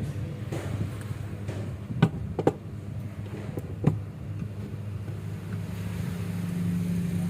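A few sharp clicks, about two, two and a half and four seconds in, over a steady low hum that grows a little louder near the end.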